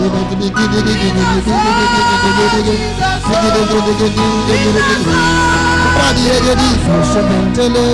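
Worship music: sustained held chords with a voice singing a gliding melody over them.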